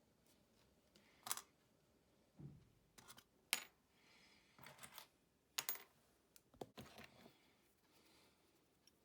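Scattered light clicks and clinks of small hard objects being handled and set down, about a dozen in the first seven seconds, some in quick little clusters.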